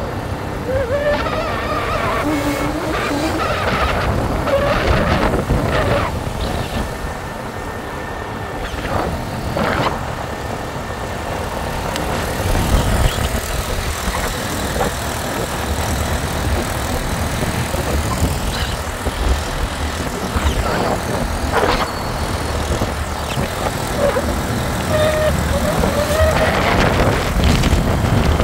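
Riding in a three-wheeled auto-rickshaw on an open road: steady engine and road noise with wind rushing past.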